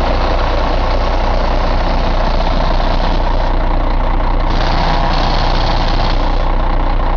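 2006 Caterpillar C15 inline-six diesel engine idling steadily.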